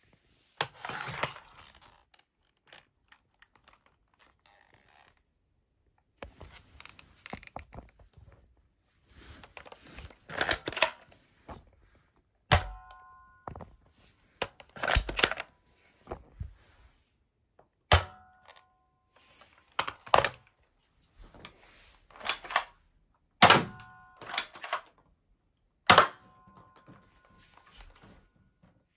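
Plastic pump-action Nerf dart blaster being handled and fired: rattling slides and clicks at first, then several sharp snaps two to three seconds apart, some followed by a short ringing tone.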